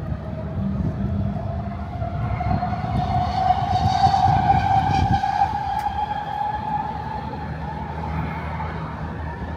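A passing train, plausibly a SkyTrain, with its motor whine rising slightly in pitch, loudest about four seconds in, then fading, over a low rumble.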